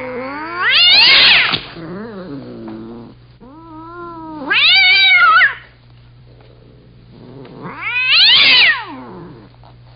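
Two cats yowling angrily at each other: long wavering caterwauls that climb in pitch to a loud peak and slide back down, three loud ones about a second in, around the middle and near the end, with lower moaning yowls between.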